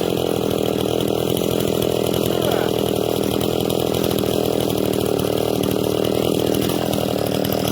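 Echo CS-680 66 cc two-stroke chainsaw with a 27-inch bar running steadily under load as it cuts through oak; the saw is stock, unported, with an untouched muffler.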